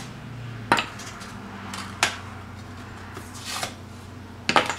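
Scored drywall being snapped and its gypsum peeled away from the paper facing to make a paper-bordered patch: several sharp snaps, two close together near the end.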